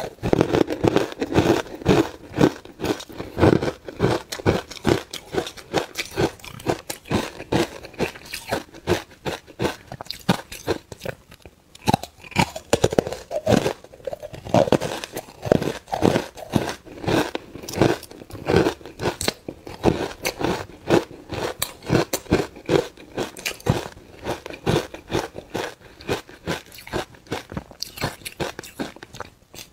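Ice cubes coated in matcha powder being bitten and chewed close to a clip-on microphone: crunching and cracking of ice, many crunches in quick succession.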